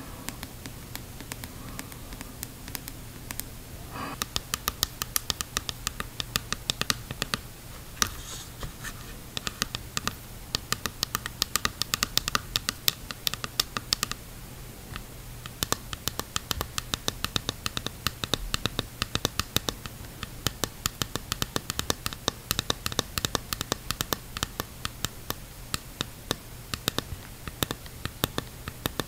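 Fingernails tapping and scratching on a clear plastic snorkel mask. The taps come fast and uneven as sharp clicks, starting in earnest about four seconds in, with a short pause partway through.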